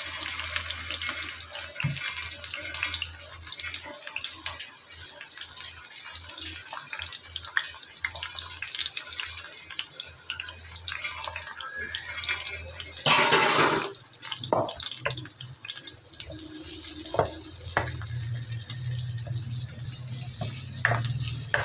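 Sliced onions sizzling and crackling in hot oil in a steel karahi, freshly added and frying. A brief louder rush of noise comes about two-thirds of the way through.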